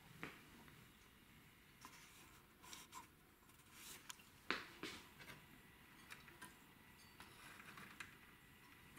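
Faint, scattered small clicks and scratching rubs of hands working the parts of a cassette deck mechanism as it is taken apart, the loudest click about four and a half seconds in.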